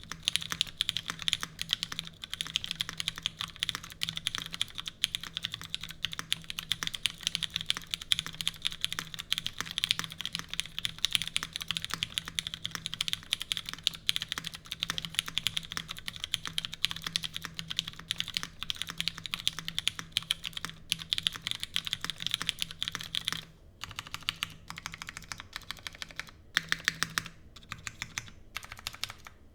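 Fast, continuous typing on a custom mechanical keyboard with an aluminium plate, no foam, GMK keycaps and lubed Cherry MX Brown tactile switches. About 23 seconds in, the typing thins out to separate keystrokes with short pauses between them.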